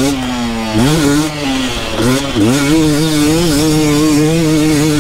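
Two-stroke enduro dirt bike engine revving up and down under riding load. The pitch drops and climbs again several times in the first two and a half seconds, then holds fairly steady.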